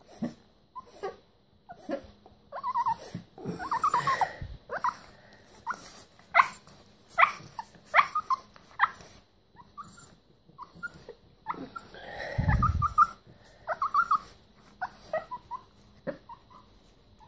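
Small long-haired dog giving many short whimpers and yips, a few each second, while being played with and petted by hand.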